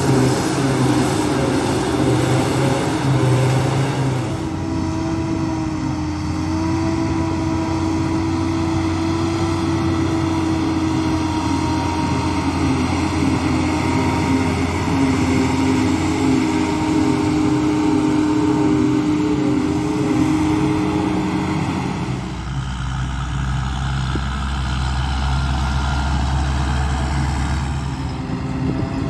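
A John Deere 7450i forage harvester and a John Deere tractor running while chopping and loading grass: a steady, loud engine drone with held whining tones. The sound shifts about 4 seconds and again about 22 seconds in.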